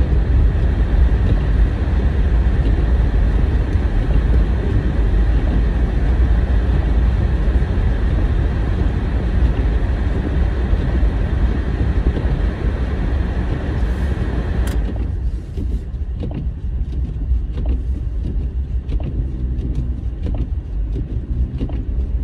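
A car driving on a snowy, slushy road: a steady low rumble of engine and road noise with a hiss of tyres on the wet surface, which drops away suddenly about fifteen seconds in, leaving the low rumble.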